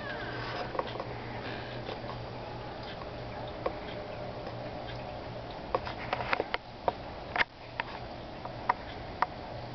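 Aquarium filter equipment running: a steady low hum with a soft rushing hiss. A handful of sharp clicks come in quick succession in the second half, then two more single clicks near the end.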